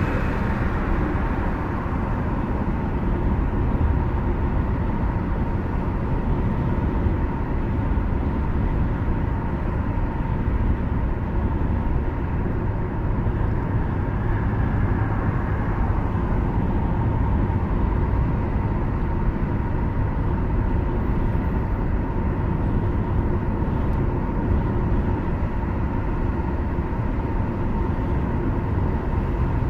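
Steady road and engine noise inside a car cruising at highway speed: an even low rumble of tyres and engine with a faint steady tone above it.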